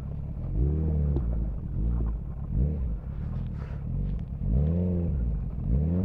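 Motorcycle engine revving up and down in several rising-and-falling surges over a steady low rumble, as the bike is ridden over rough dirt and grass.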